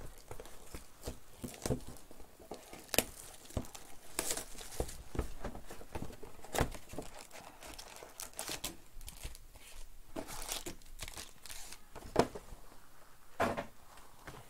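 Foil trading-card pack wrappers crinkling and tearing as the packs are handled and ripped open, in irregular sharp rustles.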